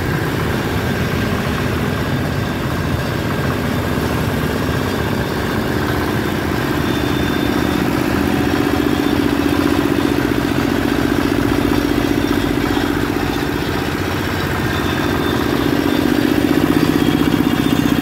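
Single-cylinder radiator-cooled diesel engine of a two-wheel hand tractor running under way with a rapid, even thump. It gets louder and a little higher about a third of the way in and again near the end.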